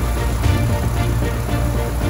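Background music with a strong bass and held chords that change about half a second in.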